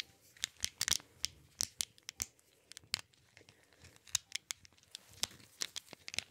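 Rubber-gloved hands rubbing and moving close to the microphone, making irregular sharp crackles and clicks.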